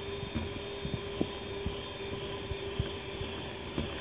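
Electric hand mixer running steadily with a steady hum, its beaters working flour into cake batter in a stainless steel bowl, with scattered short knocks of the beaters against the bowl.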